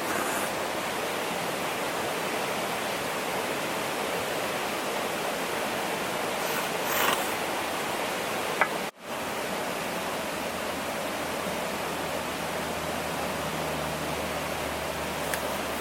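Steady, even rushing noise, like flowing water or wind, with a brief rustle about seven seconds in. The sound cuts out for an instant about nine seconds in.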